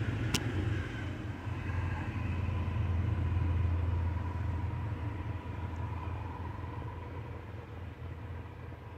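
Low rumble that swells over the first few seconds and then slowly fades, with one sharp click just under half a second in.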